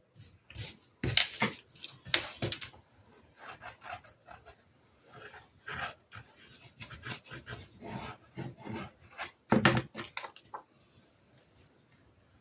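Paper and card handled by hand on a cutting mat: sheets sliding and rustling, and fingers rubbing a glued card frame down, with a few louder swishes about a second in, about two seconds in and just before ten seconds.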